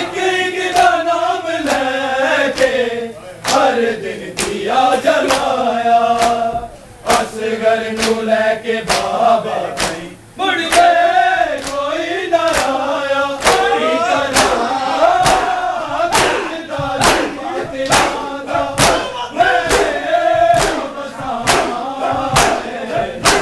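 A group of men chanting a noha (Shia mourning lament) in unison, with sharp slaps of hands striking bare chests in matam, in a steady rhythm.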